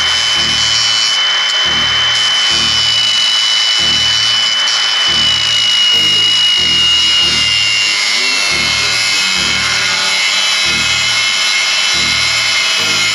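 Milwaukee cordless cut-off tool with a small abrasive disc running under load, cutting across a steel frame rivet head. It gives a steady high whine that sags slightly in pitch partway through as the disc bites. A background music track with a steady bass beat plays under it.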